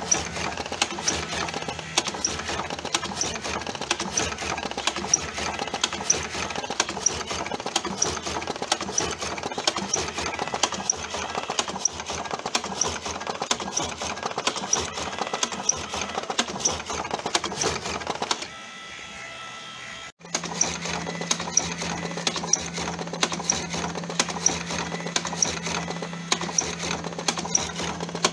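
TobaTech AG-01 cigarette tube filling machine running, with a fast, even mechanical clatter from its filling cycle. About two-thirds of the way through it drops away briefly, then resumes with a steady low hum under the clatter.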